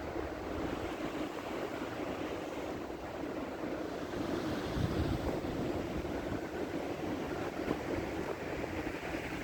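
Strong blizzard wind blowing and gusting, rushing through the conifer trees and buffeting the microphone, swelling in gusts about halfway through.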